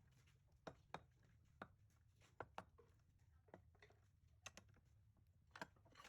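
Faint, irregular clicks and taps, about nine of them, over a low steady hum.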